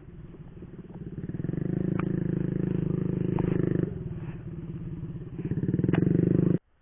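A small petrol engine running and revving, louder about a second and a half in, easing off near the middle, revving up again, then cut off suddenly just before the end.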